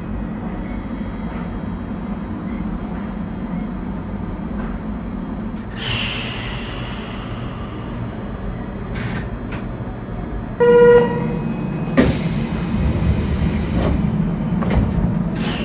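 Chiba Urban Monorail suspended train at a station: a steady low hum, a short horn toot about ten seconds in, then a sudden rush of hissing noise that carries on to the end.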